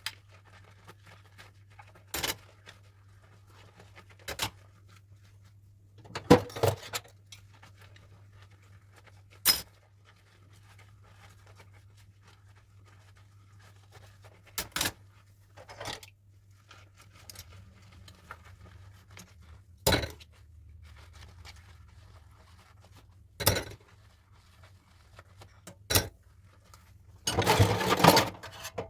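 Dishes being handled while washing up: sharp clinks and knocks every few seconds, then a longer stretch of clattering near the end, over a low steady hum.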